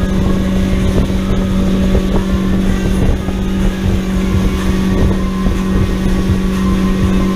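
Pontoon boat's outboard motor running under way at a steady pitch, one continuous drone, with the rush of the wake and wind on the microphone.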